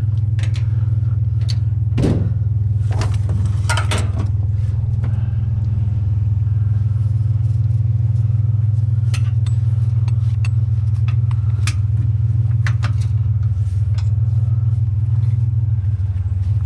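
Truck running with a steady low drone of engine and road noise, with scattered light clicks and rattles.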